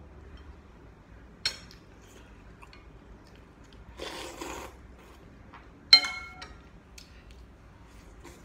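Noodles being slurped once, about four seconds in, between utensils clinking against a ceramic bowl: a ringing clink early on and a louder, sharper ringing clink about six seconds in.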